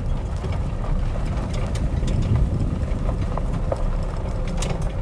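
Steady low rumble of wind on the microphone, with scattered light clicks of footsteps.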